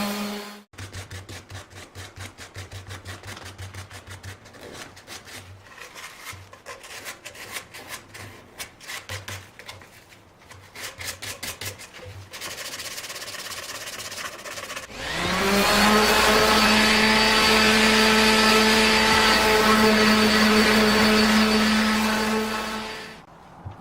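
An electric power tool's motor cuts off, followed by a long stretch of quick, repeated rubbing strokes on wood. About fifteen seconds in, the power tool starts, spins up quickly to a steady high hum, runs for about eight seconds and shuts off.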